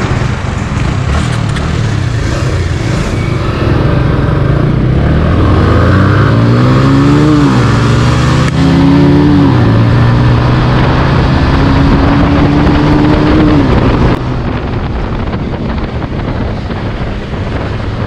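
Bajaj Pulsar 180F's single-cylinder engine under full throttle, rising in pitch through two quick upshifts and then a longer pull in the next gear, before the throttle closes about fourteen seconds in. Wind rush runs throughout.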